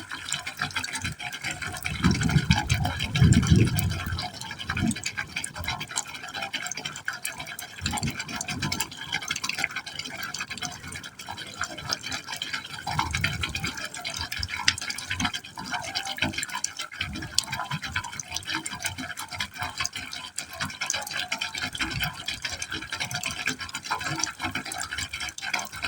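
Water falling into a pipe opening, splashing and gurgling steadily, with a few deeper gulping surges. The loudest of them comes about two to four seconds in.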